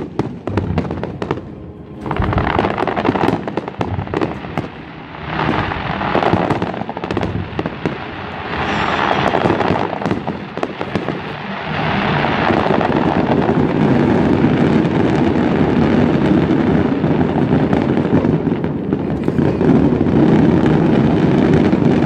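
Aerial fireworks display: crackling bursts and booms, which become a louder, dense, continuous barrage from about halfway through.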